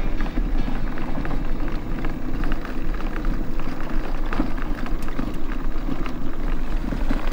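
Mobility scooter riding along a paved road: steady running and tyre rumble with irregular small rattles and knocks from the bumps.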